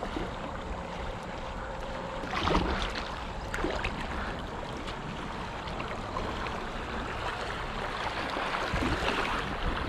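Kayak moving down a shallow, rocky river: water rushes and laps steadily around the hull, with wind on the microphone and paddle splashes now and then, the loudest about two and a half seconds in.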